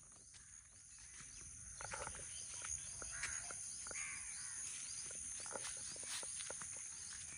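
A few bird calls over a steady high-pitched insect drone, with the soft scuff of footsteps in flip-flops on a dirt field path.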